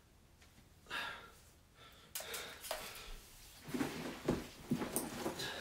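A man breathing heavily and sighing. Near the end come a cluster of short rustling and handling sounds as he bends to gather up clothes.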